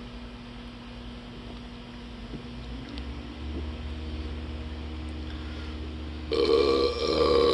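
A long, loud, deep burp starts suddenly about six seconds in, after chugging carbonated Mountain Dew. Before it there is only a faint low hum.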